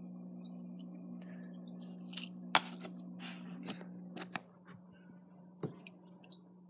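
Fish food being handled to feed a fish: a few sharp clicks and small rattles of the food container and pellets, the loudest click about two and a half seconds in. Under them is a steady low hum that drops in level about two-thirds of the way through.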